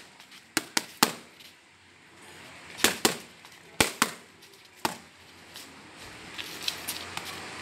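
Boxing-glove punches smacking against the trainer's raised hands: sharp smacks, several in quick one-two pairs, with lighter taps near the end.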